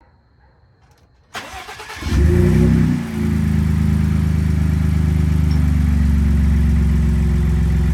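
A 2019 Ford F-150 RTR's turbocharged engine, breathing through a cold air intake, is started. It cranks briefly, catches about two seconds in, flares up in revs and drops back, then settles to a steady idle.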